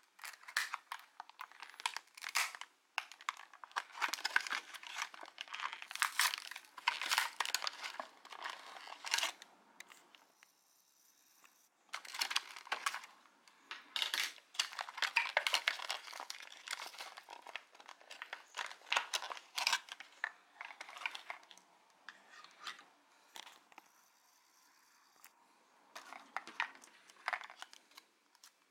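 Clear plastic blister packaging on a card backing crinkling and crackling as it is pried and pulled open by hand, in irregular bursts with a couple of short pauses.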